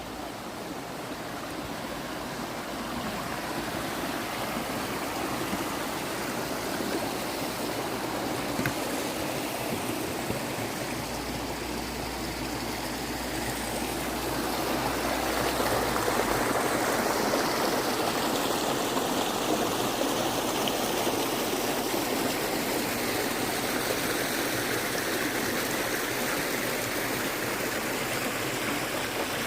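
Stock Ghyll, a fast beck, rushing over rocks toward Stockghyll Force: a steady wash of running water that grows louder about halfway through.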